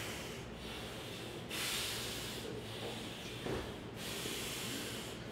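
A man breathing hard in forceful, hissing breaths, each lasting about a second, while he strains.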